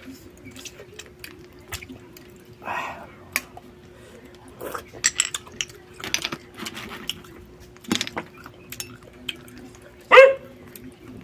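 Eating noises from live crab and snail shells: scattered clicks and small cracks as the shells are handled and bitten. A dog barks once, near the end, louder than everything else, over a faint steady hum.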